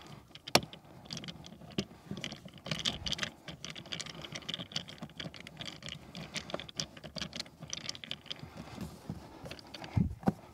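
Small clicks, ticks and scraping of hands and a screwdriver working on plastic dashboard trim as screws are refitted, with a sharper click about half a second in and a thump near the end.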